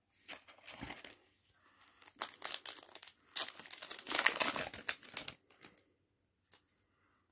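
Foil Yu-Gi-Oh! booster pack wrapper crinkling and tearing as it is opened, a run of crackly rustles that grows loudest about four seconds in and stops about six seconds in.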